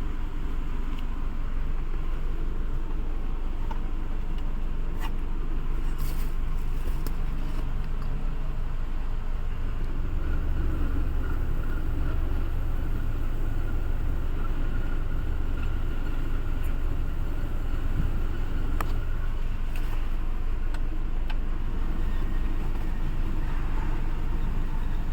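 Car engine running steadily at idle, a low even rumble with a few light clicks and a faint steady whine in the middle stretch.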